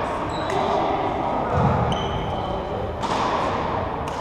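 Badminton hall ambience: indistinct voices in a large room, with a few short shoe squeaks on the wooden court floor and scattered thuds.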